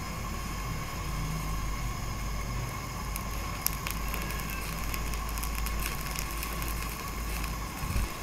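Gas stove burner running under a pressure cooker boiling goat legs: a steady low rumble of the flame with a hiss over it, and a few crackles about three to four seconds in.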